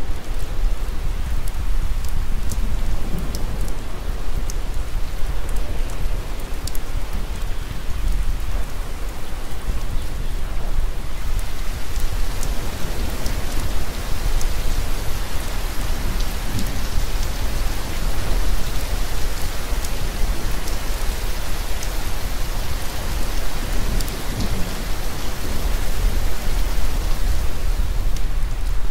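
Heavy rain falling, an even hiss dotted with sharp drop ticks over a steady low rumble, growing stronger about eleven seconds in.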